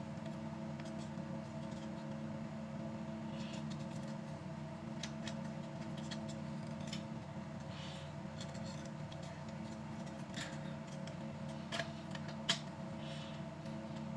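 Scattered small clicks and scrapes of a metal car door handle being worked and lined up into its mounting in the door, the sharpest click near the end, over a steady low hum.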